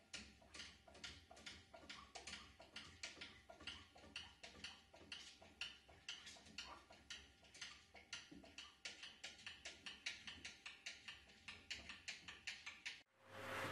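Cats in a glass shower enclosure making faint, regular clicking, about four clicks a second, over a low hum.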